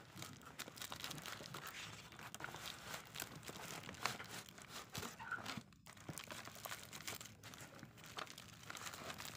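Bubble wrap and plastic wrapping crinkling and crackling in irregular bursts as wrapped items are handled and lifted out of a cardboard box, with a brief drop-out about six seconds in.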